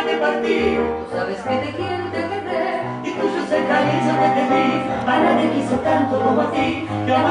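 Recorded Argentine tango waltz (vals) music playing, with bass notes moving under a busy melody.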